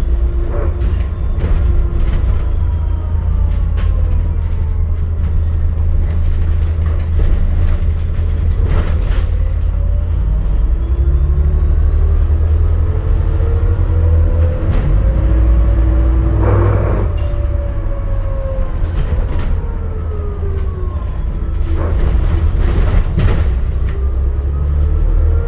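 ADL Enviro400 MMC hybrid double-decker bus running, heard from on board: a heavy low rumble with a whine that glides up and down in pitch as the bus speeds up and slows. Short knocks and rattles come through now and then, with a louder noisy burst about two-thirds of the way in.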